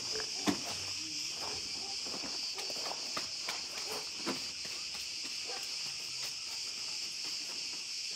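Steady high-pitched drone of insects, with scattered light knocks and clicks, the loudest about half a second in and just after four seconds.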